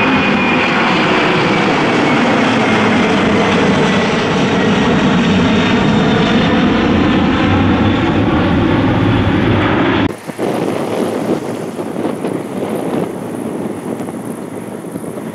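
Airliner passing close by with a loud engine roar and a high whine falling in pitch. It cuts off abruptly about ten seconds in, leaving wind on the microphone.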